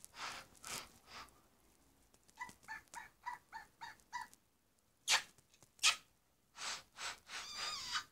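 Fingerlings baby monkey toy giving a quick run of short electronic chirps, then kissing smacks against it and a wavering electronic chatter near the end.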